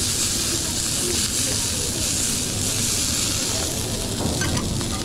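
Food sizzling in a hot pan: a steady hiss with a low rumble underneath.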